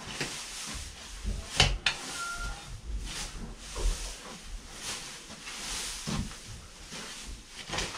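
Pitchfork tearing bone-dry hay off a round bale: repeated crackling, rustling swishes of dry hay. There are two sharp knocks about a second and a half in.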